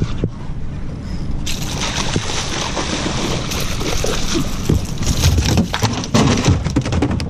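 A hooked bluefish thrashing and splashing hard at the water's surface right beside a small boat. The splashing starts suddenly about a second and a half in, with sharp knocks and thumps toward the end.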